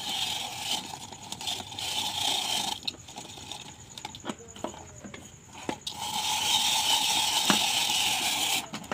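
Hand-cranked rotary vegetable shredder with a clear drum whirring as it is turned, shredding papaya. It runs in two spells of about three seconds each, with a few knocks and clicks in the pause between them.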